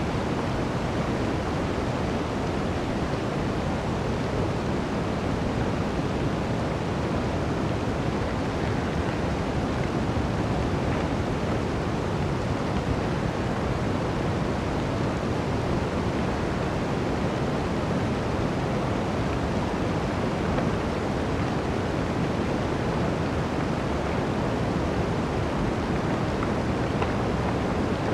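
Blizzard wind blowing through a forest: a steady, deep rushing noise with no distinct gusts, holding an even level throughout.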